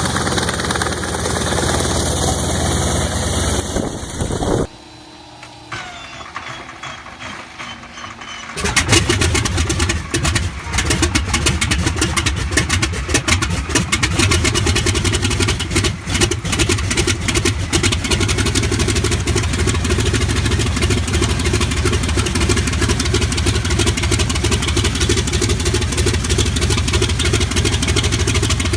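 Large WW2-era piston aircraft engine on a cold start: a few seconds of quiet cranking, then it catches about eight seconds in with ragged, uneven firing and settles into steady running with a deep rumble. Before that, another engine runs loudly and cuts off suddenly about four seconds in.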